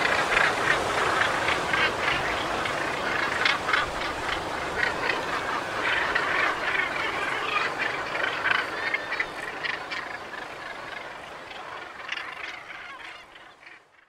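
A flock of birds calling, many short harsh calls overlapping in a dense chorus over a steady rushing background, fading out over the last few seconds.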